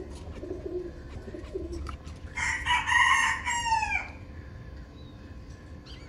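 A rooster crows once: one loud, long call starting about two seconds in and falling in pitch at its end. Pigeons coo softly before it.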